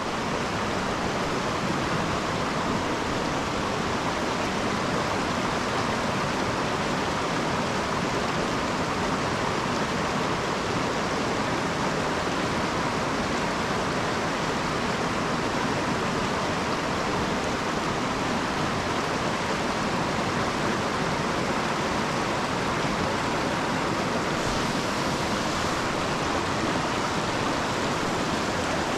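Steady rush of a rocky mountain creek's current running over rocks.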